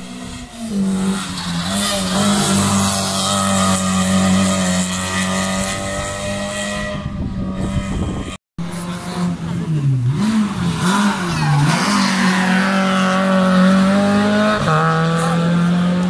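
Rally car engines revving hard on a hill-climb run, held at high revs. The sound cuts out briefly about eight seconds in; afterwards the engine pitch dips and climbs several times with gear changes, then holds high again.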